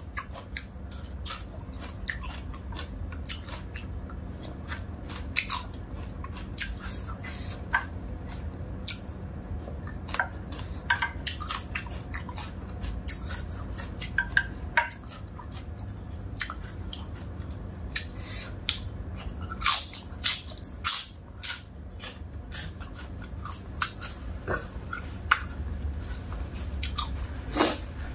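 A person chewing and biting mouthfuls of dry-tossed instant noodles with pork and meatballs, close to the microphone, with many irregular sharp smacks and clicks. A louder cluster comes about twenty seconds in and another near the end.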